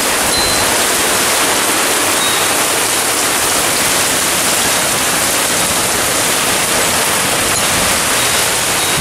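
Heavy thunderstorm downpour: a steady loud hiss of rain, with water sheeting off the roof edge and splashing onto the ground.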